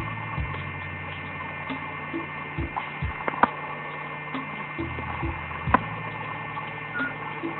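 Steady electrical hum, with soft low thumps every half second or so and a few sharp clicks, the loudest about three and a half seconds in.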